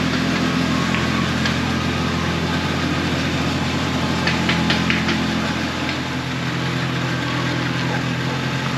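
Jeep Cherokee's engine idling steadily as the vehicle creeps slowly forward, with a few light ticks about four seconds in.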